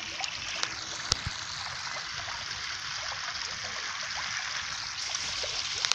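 A dense school of gulsha catfish feeding at the surface of a pond: a steady fizzing patter of many small splashes and pops, with one sharper click about a second in.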